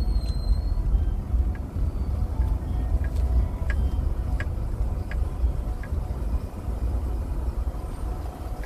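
Low, steady rumble of a car heard from inside its cabin, with a few faint clicks around the middle.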